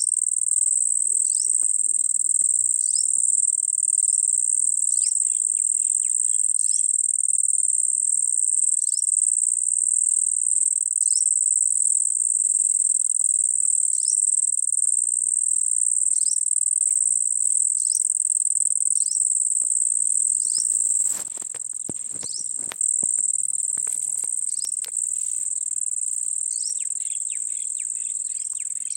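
A loud, steady, high-pitched insect drone, crickets or cicadas, with a short falling chirp repeating about once a second. The drone drops suddenly in level about two-thirds of the way through.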